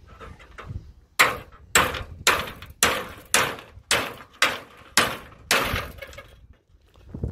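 Hammer striking metal: about nine sharp, evenly spaced blows a little over half a second apart, each ringing briefly, starting about a second in and stopping near the end.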